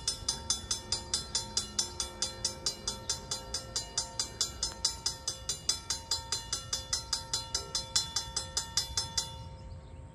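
Railroad grade crossing warning bell ringing in fast, even strokes, about four or five a second, warning of an approaching train; it stops suddenly near the end.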